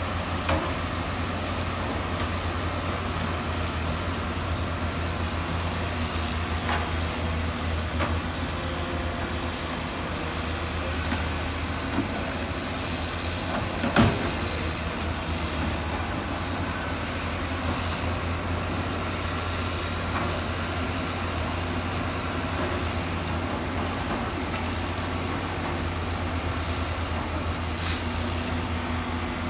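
Heavy construction machine's diesel engine running steadily, with a few scattered clanks and knocks, the loudest about fourteen seconds in.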